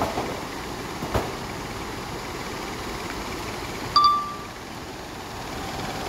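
A single short electronic chime about four seconds in, ringing out briefly over a steady rushing background noise. There is a faint click about a second in.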